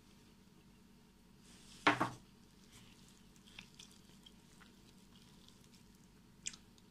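Hands kneading soft poğaça dough in a plastic bowl: faint squishing with a few small clicks, and one short, sharp knock about two seconds in.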